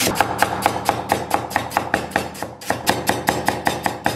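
Chinese cleaver slicing fresh ginger on a wooden chopping block, an even run of knocks about six a second as each blade stroke hits the wood.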